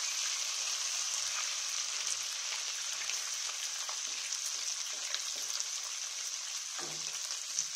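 Mustard oil sizzling steadily in a kadai, with panch phoron, dried red chillies and coarsely ground ginger frying in it; a short light knock near the end.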